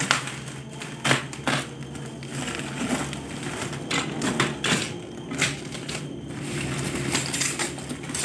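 Black bubble-wrap packaging and clear tape being slit with a utility knife and pulled off a cardboard box: irregular crinkling, tearing and crackling of the plastic, with sharp snaps.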